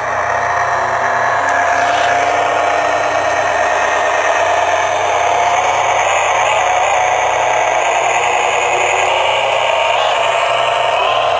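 Cross RC HC6 6x6 radio-controlled scale truck running steadily under load as it climbs a sand mound, a continuous mechanical sound with a slightly wavering pitch.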